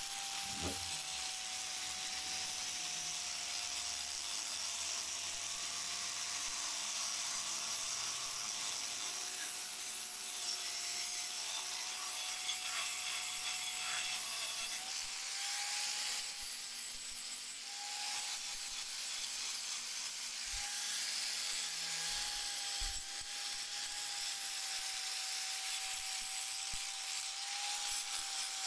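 Electric angle grinder running steadily with an abrasive disc grinding steel: a constant motor whine that wavers slightly in pitch, over a hiss of metal being abraded.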